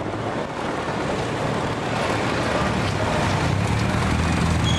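Vehicle engine running with wind rushing over the microphone, heard from an open vehicle moving through traffic. The engine grows a little louder near the end.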